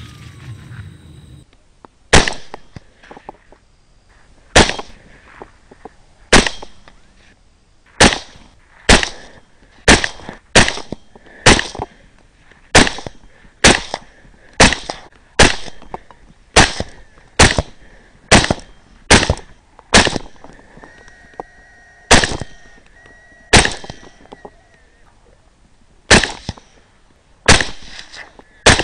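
Semi-automatic rifle fired in a long string of about two dozen shots, irregularly spaced and often about a second apart, each shot trailing off in an echo.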